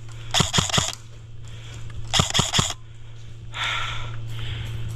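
Airsoft rifle firing two short bursts of a few rapid shots each, about a second and a half apart.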